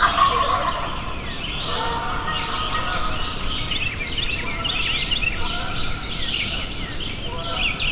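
Many small songbirds singing at once, a dense stream of quick chirps and trills, with a lower, held call at the very start and again about two seconds in.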